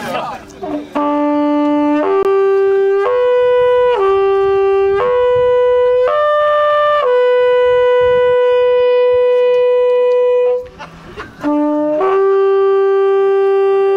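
Midwinter horn, a long wooden lip-blown horn, playing a tune of steady notes on its natural harmonics: notes about a second each stepping up and down, then one note held about four seconds. After a short break it sounds two quick rising notes and settles into another long held note.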